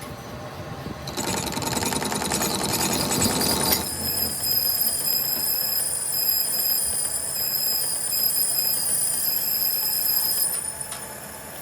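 Workshop machinery running: a very fast mechanical clatter for a few seconds, then a steady high-pitched whine that fades out near the end.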